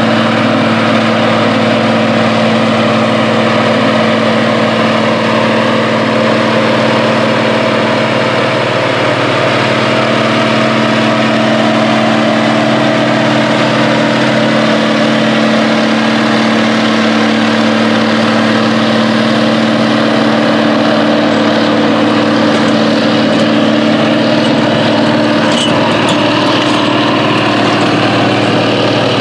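1969 John Deere WA-14 four-wheel-drive tractor's diesel engine running steadily under load while pulling a 12-bottom plow through the field. The engine note sags slightly about a third of the way through.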